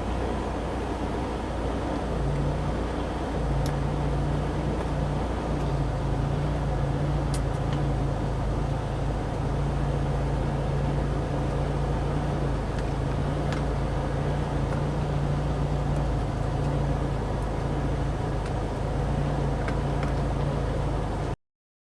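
Steady vehicle driving noise: low engine and road rumble with a low hum that comes and goes, cutting off abruptly near the end.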